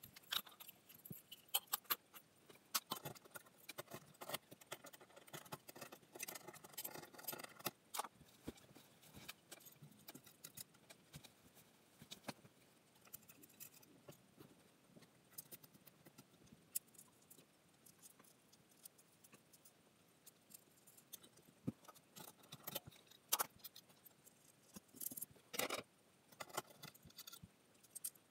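Small parts and hardware being handled: scattered light clicks and clinks with some rustling, the loudest cluster near the end.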